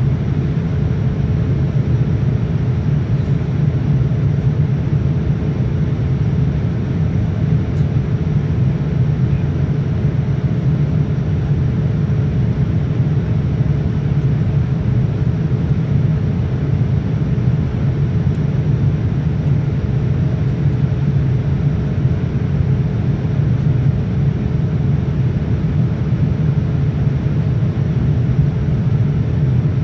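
Steady in-flight cabin noise of a Boeing 787-9: an even rumble of airflow and Rolls-Royce Trent 1000 engines, with a thin steady hum above it.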